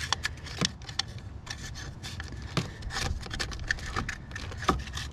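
Scattered small plastic clicks and rubbing as a hand pries and wiggles the locking clip of the Volvo P2 brake control module's wiring connector, trying to release it.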